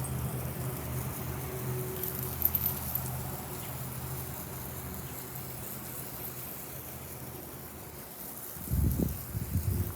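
Outdoor background with a steady low hum that fades out about eight seconds in, followed by irregular dull thumps and rumbling near the end.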